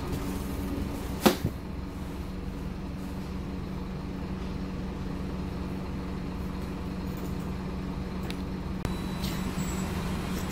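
Scania OmniCity bus's five-cylinder diesel engine running with a steady drone, heard from inside the passenger saloon. There is one sharp knock about a second in.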